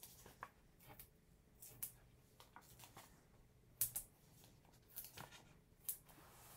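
Faint, scattered taps and rustles of paper being handled: a small die-cut paper label being pressed and turned on a cutting mat as adhesive dots are stuck onto it.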